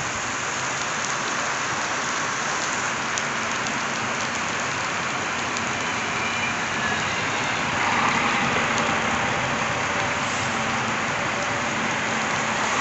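Steady heavy rain falling on the platform and tracks, with a single-car diesel railcar of the Regio-Shuttle type running past; its sound swells under the rain about eight seconds in, with a faint low hum.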